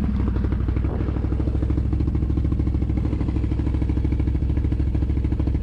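ATV engine idling steadily, with an even, fast pulse and no revving.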